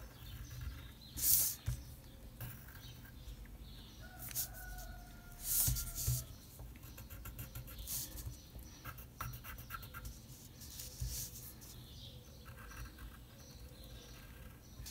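Pencil drawing on paper: soft, intermittent scratching strokes, a couple of them louder, about a second in and near the middle.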